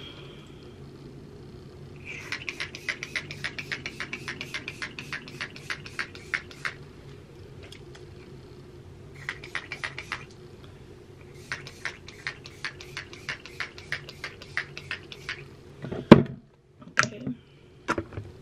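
Hand-pump spray bottle spritzed quickly onto wet hair, about five short sprays a second in three runs, over a faint steady hum. Near the end comes one loud knock and a few clicks.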